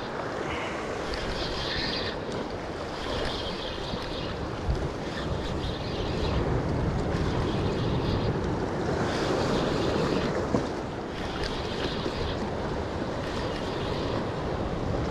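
Sea surf washing against a rocky shoreline, with wind buffeting the microphone.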